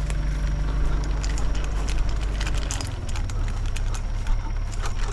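Backhoe engine running steadily, its note shifting about halfway through, with scattered light clicks and clatter over it.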